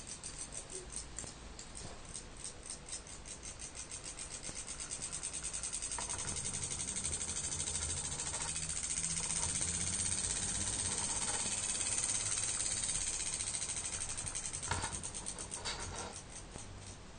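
Gakken electromagnet engine model, a small Froment-type electric motor, running with rapid, even clicking as its flywheel turns, here switched to run in reverse. The clicking speeds up over the first few seconds, holds fast and steady with a low hum underneath, then slows again near the end.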